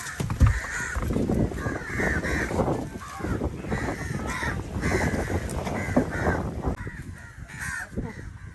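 Crows cawing, many short calls in quick, overlapping succession, with a low rumble underneath.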